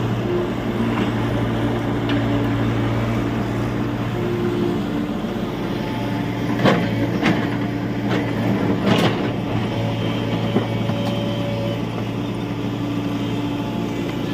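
Tata Hitachi EX70 Super Plus excavator's diesel engine running steadily, with a few sharp knocks a little past the middle.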